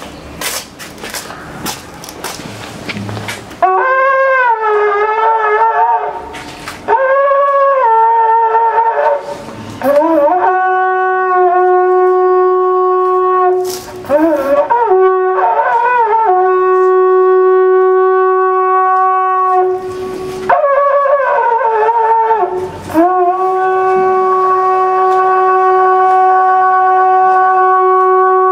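Polish shepherd's horn (róg pasterski) blown in a series of calls beginning about three and a half seconds in. Each phrase opens with bent, wavering notes and settles into a long held tone, the last held for over five seconds.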